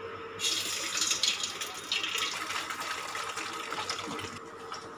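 Eggs sizzling in a hot steel pan, a crackling hiss that starts suddenly about half a second in as an egg goes into the pan, and falls away near the end.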